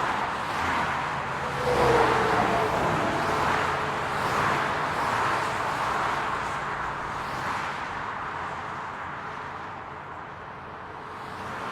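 City road traffic: a steady hum of cars that swells about two seconds in, then slowly eases off toward the end.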